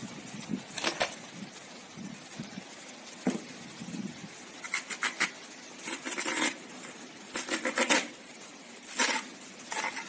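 Small kitchen knife cutting into a raw banana stem: short, crisp slicing and scraping strokes that come in several quick clusters.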